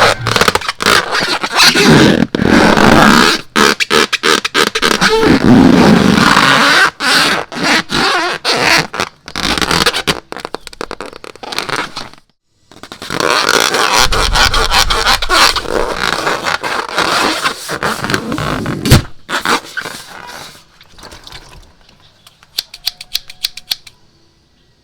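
Slime being squeezed and worked by hand: wet squelching, crackling and scraping. There is a short break about halfway, and a quick run of small clicks near the end.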